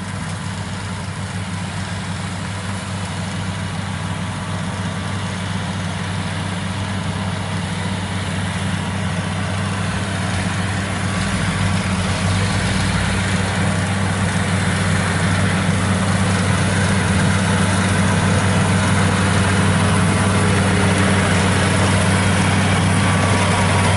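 Kubota combine harvester's diesel engine running steadily as it cuts rice, growing gradually louder as the machine drives closer.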